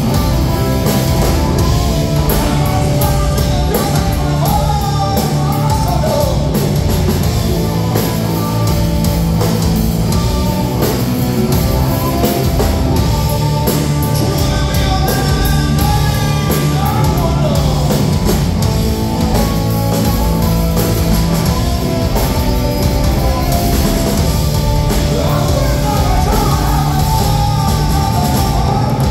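Live hard-rock band playing at full volume: distorted electric guitars through Marshall stacks, bass and a drum kit, with singing.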